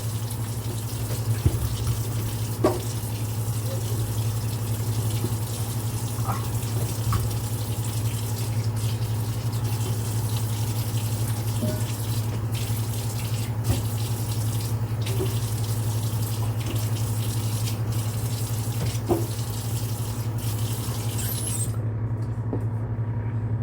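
Kitchen tap running water into a sink during cleaning, with a few faint clinks; the water stops about 22 seconds in. A steady low hum runs underneath.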